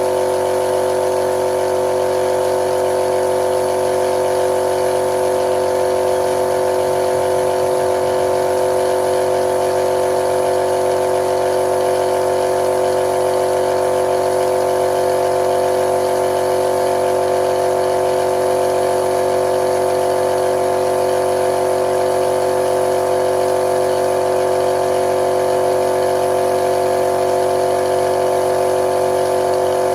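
Motor of spray-painting equipment running steadily, a constant even hum.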